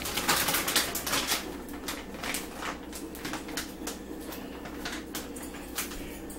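Crinkling and rustling of a plastic food bag being handled, densest in the first second or so, then scattered crackles, over a steady low hum.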